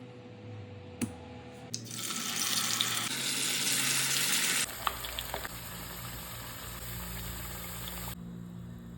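Potatoes sizzling as they fry in hot oil, heard in several short edited clips, so the sizzle changes abruptly at each cut; it is loudest for a couple of seconds starting about two seconds in.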